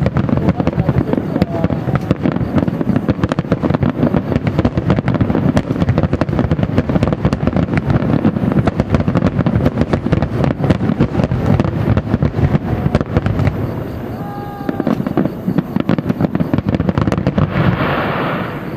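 Dense barrage of aerial fireworks bursting, many booms and crackles overlapping rapidly. About fourteen seconds in the barrage eases briefly and a short falling whistle-like tone sounds, and near the end a hissing crackle takes over.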